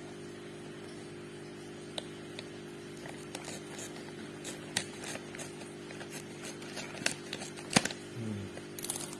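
Plastic fish-food pellet bag being handled and opened, giving irregular crinkles and sharp clicks, the loudest near the end, over a steady low hum.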